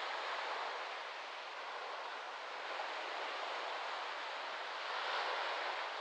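Small waves lapping and washing onto a sandy beach: a steady rush of surf that swells near the end as a wave breaks.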